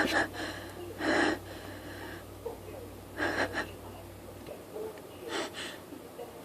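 A woman's short, wheezy, gasping in-breaths: four of them, one to two seconds apart, as she catches the urge to sneeze partway through a sneezing fit.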